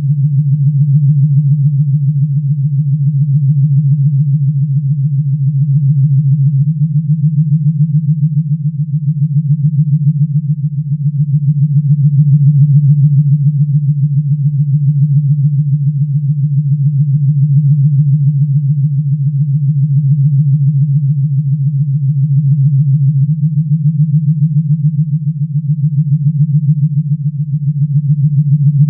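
Low, steady electronic hum from a Star Trek sound effect, with a fast fluttering pulse and slow gentle swells in loudness.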